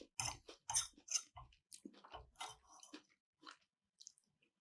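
Close-miked chewing of keto sushi: a quick run of short bites and chews, about two a second, that thins to a few soft ones near the end.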